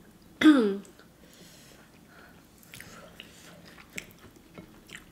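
A short, loud vocal exclamation with a falling pitch about half a second in, then soft mouth clicks and lip smacks of chewing food.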